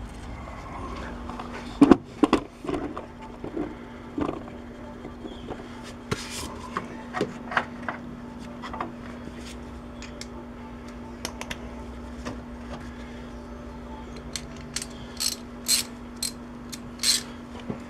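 Hands working in an engine bay, with scattered knocks and clicks of parts and tools being handled and a run of sharp clicks near the end. A steady low hum runs underneath.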